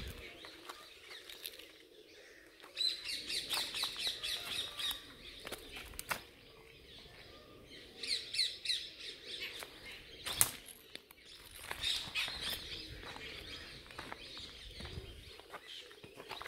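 Birds chirping outdoors in repeated quick runs of high notes, with scattered sharp clicks in between; the loudest is a single sharp click about ten seconds in.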